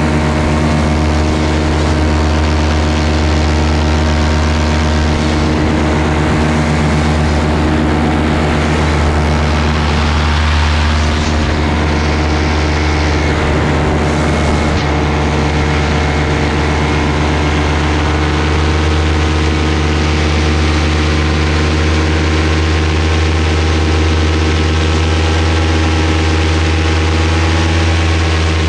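Paramotor engine and propeller running at steady power in flight, its pitch holding even with no rise or fall.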